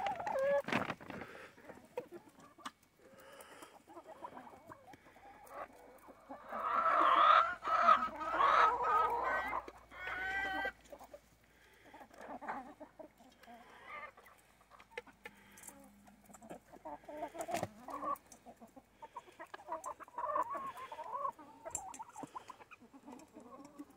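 A flock of backyard chickens clucking while they feed, with a louder stretch of overlapping calls about seven to ten seconds in.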